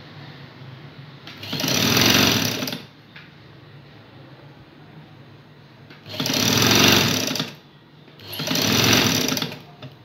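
Electric-motor-driven domestic sewing machine stitching a seam through cotton fabric, run in three short bursts of a second or so each, stopping in between.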